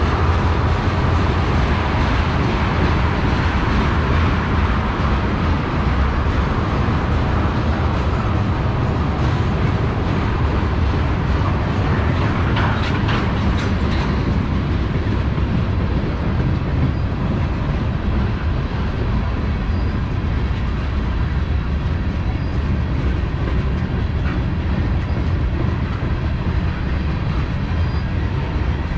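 Freight train tank cars rolling past: a steady, heavy rumble of steel wheels on rail, with a few sharper clicks about twelve to fourteen seconds in.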